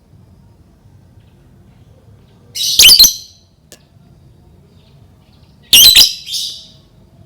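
Lovebird giving two loud, shrill squawking bursts, each under a second long and about three seconds apart: bait calls meant to set other lovebirds calling.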